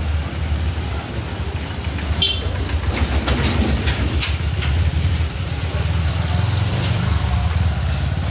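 Road traffic: the engine rumble of a bus passing close by, over steady street traffic noise, with short clicks and rattles a few seconds in.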